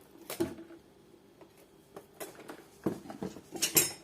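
Scattered sharp clicks and knocks of small objects and packaging being handled and set down, the loudest a short rattly clatter near the end.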